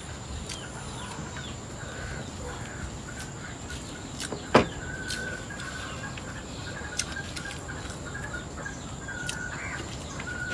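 Village chickens clucking in the background, with short, broken calls now and then, and a single sharp click about four and a half seconds in.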